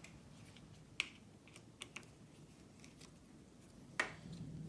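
A handful of sparse, light clicks from a 4 mm Allen key working the bike's stem bolts in their aluminium threads. The loudest click comes near the end.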